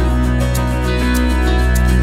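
Background music with plucked guitar and a steady low bass.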